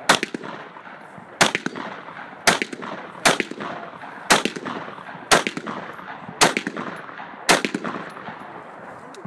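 Rifle fired shot by shot, eight sharp cracks about a second apart.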